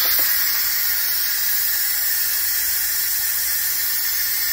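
Instant Pot electric pressure cooker venting through its steam-release valve: a steady hiss of escaping steam that starts suddenly. This is the quick release of the remaining pressure after the cook and a few minutes of natural release.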